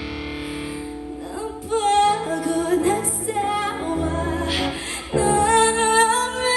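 Live band music: a loud heavy guitar section cuts off, and a solo singer sings a slow melody with held, wavering notes over a quiet bass and guitar backing.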